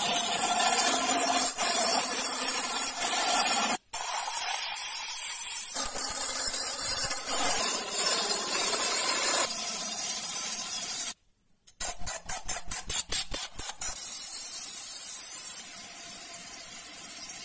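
Wood lathe spinning a wooden vessel while a hand-held turning tool cuts into it: a steady rasping hiss of the tool shaving the wood. The sound drops out briefly about four seconds in and again around eleven seconds, then stutters with rapid breaks; near the end it turns to an abrasive pad rubbing on the spinning wood.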